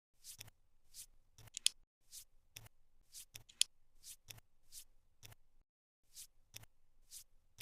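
Cardboard jigsaw puzzle pieces being handled and pressed into place: a run of short clicks and scrapes, two or three a second, with two sharper clicks and a brief pause near the end.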